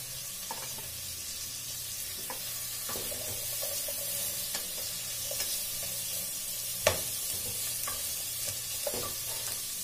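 Onion and bell pepper sizzling in a pot as they are sautéed, stirred with a wooden spoon that knocks lightly against the pan now and then. One sharper knock comes about seven seconds in.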